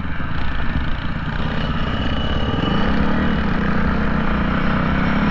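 Off-road vehicle engine running steadily, its note rising a little about halfway through.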